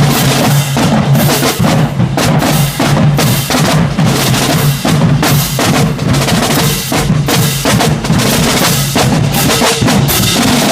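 High school marching band drumline playing a loud, driving cadence of snare and bass drums, with dense, rapid strokes and no pause.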